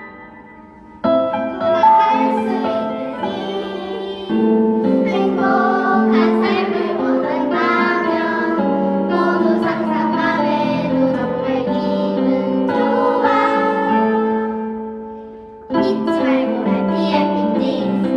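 Children singing a song together over instrumental accompaniment. The music starts about a second in, fades down near the end, then comes back strongly.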